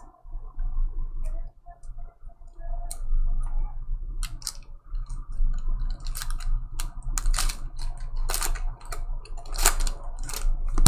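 Mosaic basketball cards and their cello packs being handled: a run of crisp clicks, snaps and rustles, sparse at first and busier and louder from about four seconds in, over a steady low hum.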